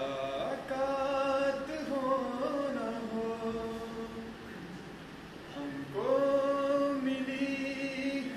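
A man singing unaccompanied, drawing out long held notes; a new, louder phrase begins about six seconds in.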